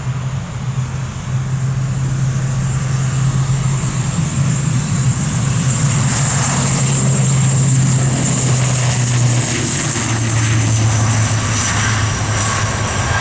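ATR 42-600 twin turboprop taking off, its Pratt & Whitney PW127 engines and propellers giving a steady low drone with a high turbine whine on top. The drone drops slightly in pitch about nine seconds in, and the whine slides a little lower shortly before.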